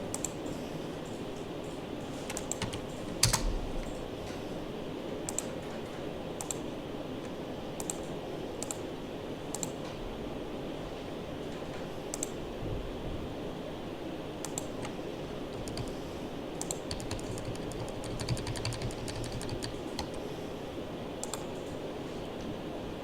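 Scattered clicks of a computer keyboard and mouse, with a quick run of key presses about two-thirds of the way through, over a steady low background hum.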